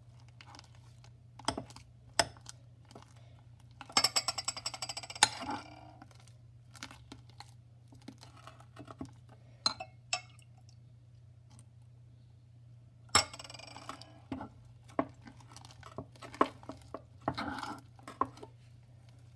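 A spoon stirring thick fluffy slime in a bowl, clinking and scraping against the bowl's side in irregular bursts, with the busiest runs of clinks about four seconds in and again about thirteen seconds in.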